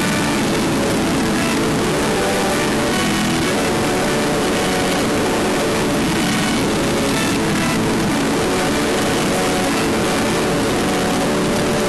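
CB radio audio played backwards: a steady wash of radio static with short scattered tones through it.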